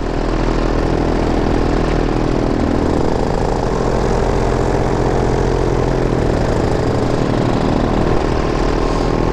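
Blackhawk Airmax 220 paramotor engine and propeller running steadily in flight.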